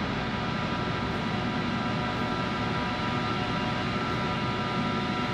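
Diesel pump nozzle filling a lorry's fuel tank: a steady rush of fuel flowing, with a faint steady whine from the pump.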